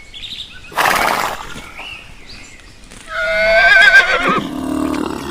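Horse whinnying: one long, high, quavering call about three seconds in, after a short breathy blast about a second in.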